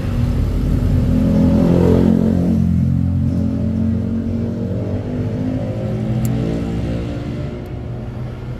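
Engine of a passing road vehicle, rising in pitch as it accelerates for about two seconds and then falling away, with a second, weaker rise around six seconds in.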